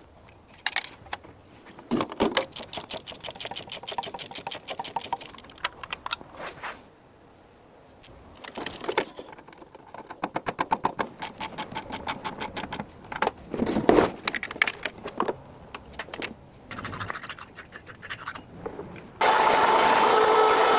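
Long runs of rapid metallic clicking and scraping, as from hand-tool work on metal, broken by short pauses. Near the end a louder, steady mechanical sound with several held tones starts abruptly.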